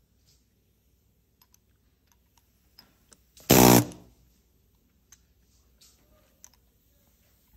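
A handheld power tool gives one short rattling burst, under half a second long, about three and a half seconds in, as it drives a covered button into the deep tufting of a velvet Chester armchair. Faint clicks and handling noises come before and after.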